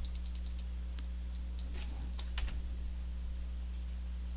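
Faint computer mouse clicks and keyboard keystrokes: a quick run of clicks at the start, then a few scattered taps up to about halfway, over a steady low electrical hum.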